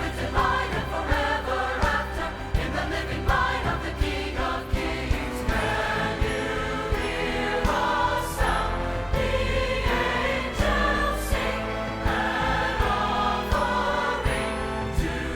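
Choir singing with a band accompaniment: a steady bass and regular percussion hits.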